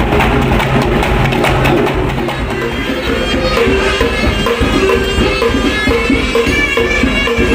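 Loud live traditional Javanese ensemble music: hand drums and percussion playing busily, with a sustained melodic line coming in about three seconds in.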